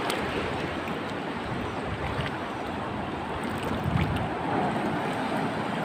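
Shallow seawater lapping and washing in a steady rush, with wind on the microphone.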